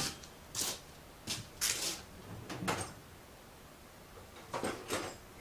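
Handling noises at a workbench: five or so short scrapes and clatters of parts or tools being moved, spaced irregularly.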